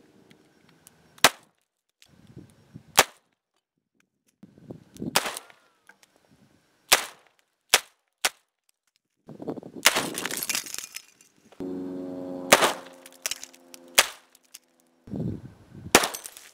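A string of about ten single gunshots at uneven intervals, several followed by the noisy spatter of a target bursting apart. A pitched metallic ringing lasts a couple of seconds past the middle.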